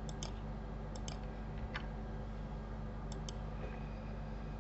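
Sparse clicks from a computer mouse and keyboard, mostly in quick pairs, about four times, over a faint steady electrical hum.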